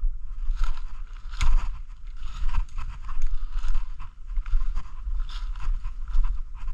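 Footsteps crunching and rustling through dry leaf litter at a steady walking pace, over a steady low rumble.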